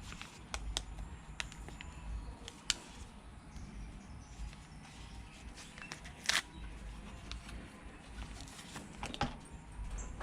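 Faint handling noises of a phone and a lens wipe: scattered light clicks, taps and rubs, with one sharper click about six seconds in.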